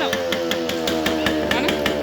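Yamaha RX-series two-stroke motorcycle engine, its note sliding slowly down in pitch as the revs fall, with sharp regular pops from the exhaust.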